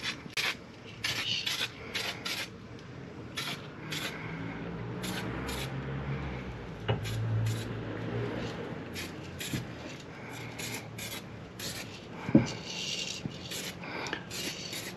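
Aerosol can of yellow brake-caliper paint sprayed in many short hissing bursts, with some metallic rattling and clinking from the can.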